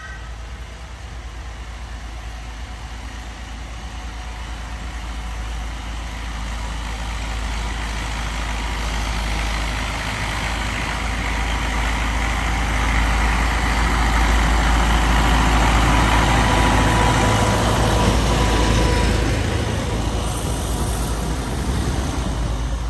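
Small narrow-gauge diesel locomotive running as it approaches and passes along the track, the engine note swelling to its loudest about two-thirds of the way in and then easing off.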